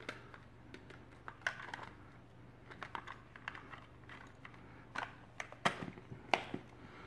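Plastic case halves of a Sanwa CD732 digital multimeter being handled and pressed back together: scattered small plastic clicks and taps, with a few sharper clicks about five to six and a half seconds in.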